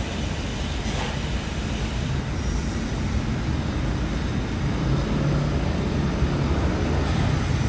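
Steady low rumble of running engines, with a low hum growing stronger about five seconds in.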